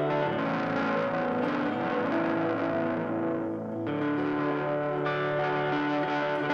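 Electric guitar played through a TC Electronic Flashback X4 delay pedal into amplifiers: sustained chords with echoing repeats from the delay, changing chord twice.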